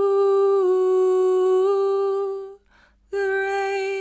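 A woman singing a cappella, holding one long steady note that dips slightly and returns. A short breath comes about two and a half seconds in, then she starts another long held note.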